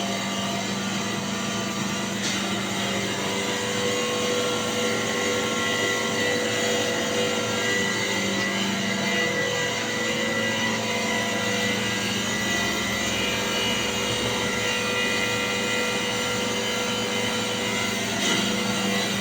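30 kW (40 hp) VFD-driven screw air compressor running steadily: a continuous machine hum, with a high whine that comes in about five seconds in.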